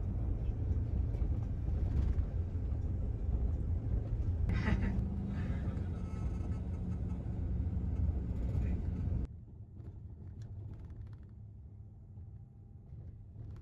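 Steady low engine and road rumble heard from inside a moving bus, with a brief voice about halfway through. About nine seconds in it drops suddenly to a much quieter hum.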